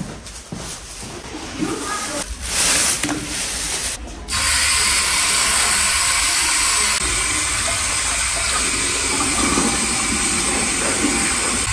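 Handling noise with a brief loud rustle, then tap water running steadily into a ceramic washbasin from about four seconds in, as a whole sea bass is rinsed under the stream.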